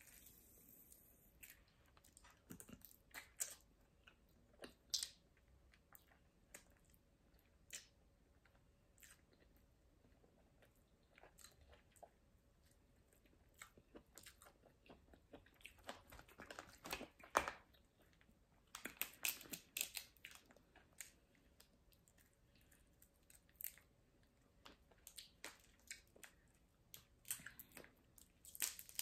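Quiet eating of steamed blue crabs: scattered sharp clicks and cracks of crab shell being picked apart by hand, with chewing and crunching that come in denser clusters now and then.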